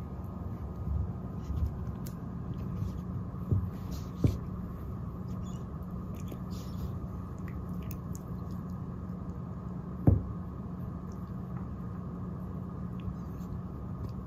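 A cat wrestling a fluffy wand toy on a rug: soft scuffing and rustling with a few dull thumps of its body and paws hitting the floor, the loudest thump about ten seconds in, over a steady low room hum.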